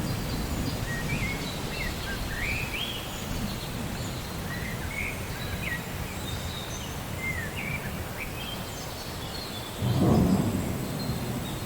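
Rainstorm with steady rain and a low rumble of thunder, with birds chirping over it for the first part. About ten seconds in, a louder roll of thunder.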